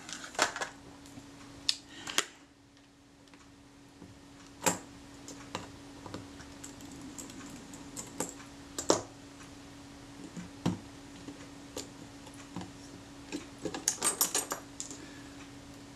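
Scattered light clicks and taps of small metal tools and parts against a Kodak Retina IIIc camera body during reassembly, with a quick cluster of clicks near the end as the top cover is pressed into place.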